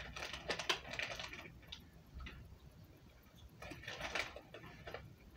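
Plastic food wrapping crinkling and crackling in short bursts while being handled, the busiest bursts near the start and again around four seconds in.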